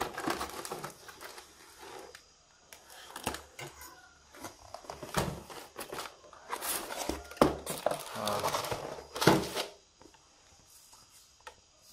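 Cardboard box and its cardboard insert being opened and pulled about by hand: irregular rustling and scraping with a few knocks, busiest in the middle, dying down about two seconds before the end.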